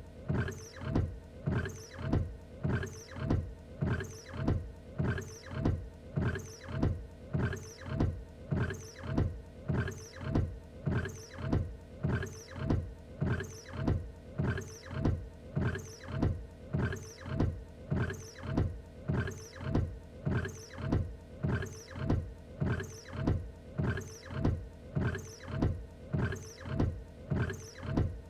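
Car windshield wipers sweeping back and forth in an even, unbroken rhythm. Each sweep carries a short whirring, squeaking tone.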